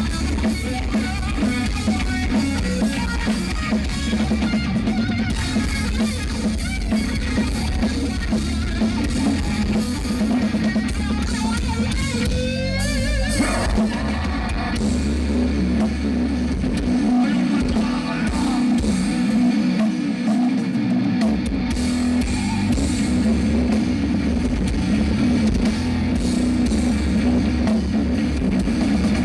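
Live metal band playing loudly: electric guitar over a drum kit. For a few seconds past the middle the deep bass drops out, then comes back.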